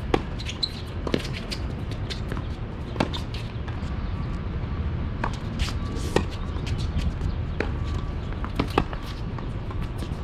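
Tennis balls being struck by rackets and bouncing on a hard court during a rally: sharp pops a second or more apart, over a steady low rumble.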